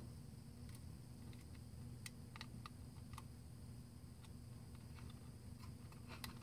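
Faint, irregular small clicks and taps of fingers handling a plastic project box and its wires, over a low steady hum.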